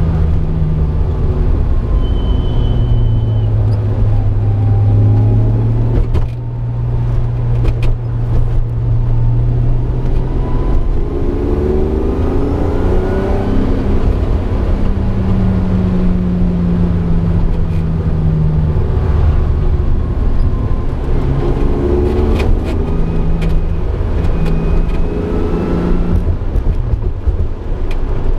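1965 Jaguar E-Type's straight-six running through a new straight-through Bell sport muffler, heard from inside the cabin while driving. The exhaust note rises and falls with the throttle, easing off briefly about six seconds in and climbing in revs again around the middle and about three-quarters of the way through.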